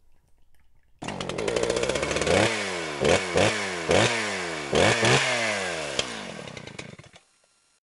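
A small engine starts abruptly about a second in, running fast, then is revved in a series of quick throttle blips with the pitch falling away after each, before cutting off suddenly near the end.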